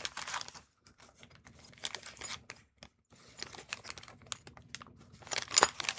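Small parts and plastic packaging being handled: irregular crinkling with light clicks and taps, and a louder cluster of clicks about five and a half seconds in.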